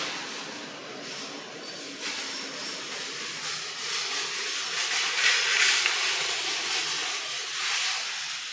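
Steady hissing forest ambience that swells louder about five seconds in.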